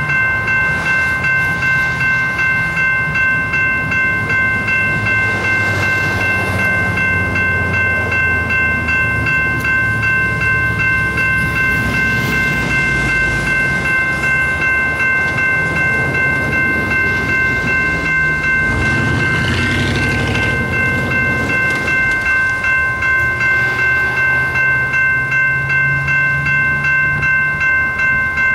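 General Signals Type 2 electronic crossing bell ringing continuously, a fast-repeating multi-tone ding, over the rumble of road vehicles crossing the tracks, one of which passes loudly about two-thirds of the way through.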